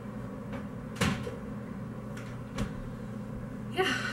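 Knocks from a kitchen refrigerator as something is put away and the door is shut: a sharp knock about a second in, a lighter one a second and a half later, and a short noise near the end, over a steady low hum.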